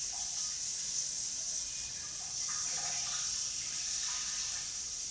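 Steady hiss of a lit gas stove burner, with faint scattered tones in the background.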